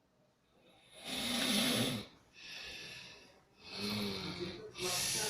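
A sleeping person snoring: after about a second, a low buzzing snore on the breath in, then a softer breathy breath out. The pattern comes twice.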